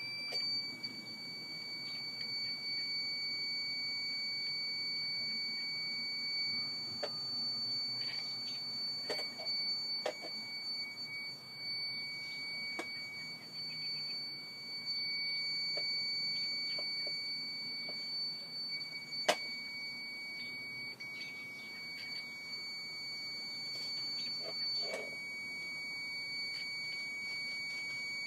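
Battery backup sump pump's alarm buzzer sounding one steady, unbroken high-pitched tone, with a few faint clicks and a faint low hum beneath it.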